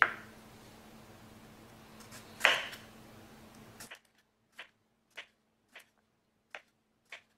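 Kitchen knife slicing through a cucumber stuffed with cherry tomatoes and tapping the bamboo cutting board: one sharp chop about two and a half seconds in, then from about four and a half seconds a run of five lighter cuts, roughly one every half-second.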